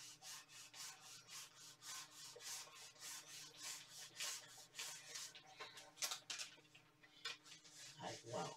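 Small heat iron rubbed back and forth over kraft paper on a cotton t-shirt, a faint papery scraping at about three strokes a second that thins out near the end; the heat and rubbing draw leftover vinyl glue out of the fabric into the paper.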